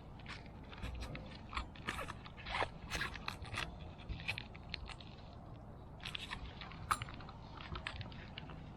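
Hands working on a car fuel pump assembly: a run of irregular clicks, crackles and scrapes of small plastic and metal parts being handled and pried, in two bursts with a quieter stretch between.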